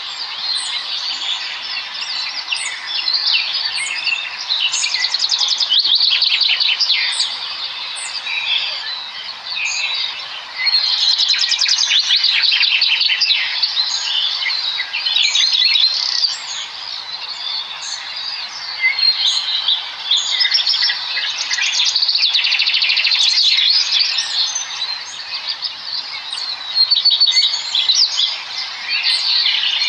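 A dense chorus of many small birds chirping and chittering at once, with overlapping fast trills and short high-pitched notes.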